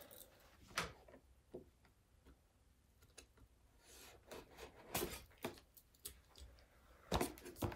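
Faint, scattered clicks and scrapes of a cardboard-and-plastic action-figure box being handled and its side tape slit with a small blade, with a short scraping cut about four seconds in and clusters of clicks after it and near the end.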